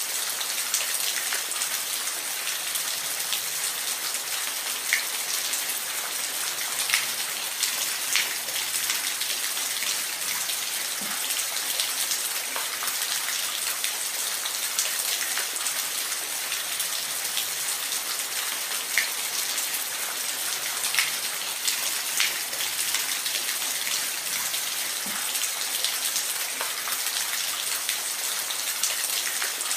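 Steady rain falling in a forest: an even hiss of rainfall, with scattered sharper drops ticking close by.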